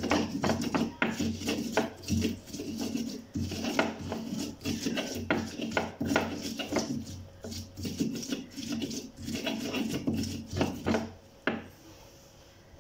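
Stone pestle (ulekan) grinding and knocking in a stone mortar (cobek), crushing fresh bird's-eye chilies and garlic with salt into coarse sambal: a quick, uneven run of gritty scrapes and knocks of stone on stone. It stops suddenly near the end when the pestle is set down.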